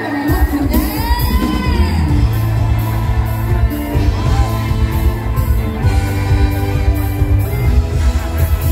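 Live mor lam music played loud over a big outdoor PA: a singer's voice gliding and wavering over a heavy bass and a steady drum beat.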